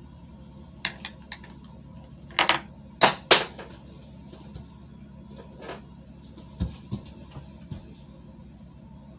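A scattered series of short sharp clicks and knocks, like household clatter, loudest twice about three seconds in, with a dull low thud near seven seconds.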